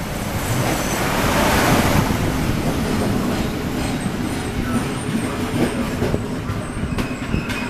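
An SU42 diesel-electric locomotive passing close by as it draws into the station, loudest as it goes past about a second or two in. Double-deck passenger coaches follow, rolling past with a steady hum and a few sharp wheel clicks on the rails near the end.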